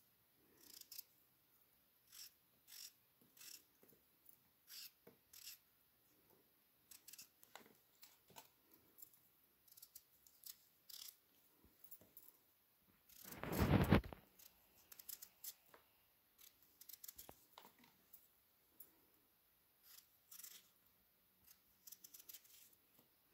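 A small knife peels skin off fruit in short, sharp scraping strokes, about one every half-second to second. A louder, dull rubbing bump comes just past the middle.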